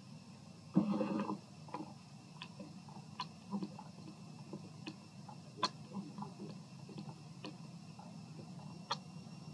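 Irregular sharp clicks and smacks, one or two a second, over a faint steady high hum. A short low grunt-like sound comes about a second in.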